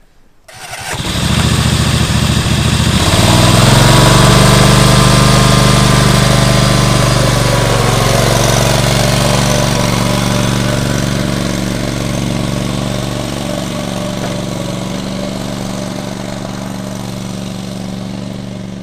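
Husqvarna 316TXs ride-on mower's Kawasaki FS481V V-twin engine, converted to run on LPG (propane), starting up about a second in and then running steadily. It fades slowly as the mower drives away.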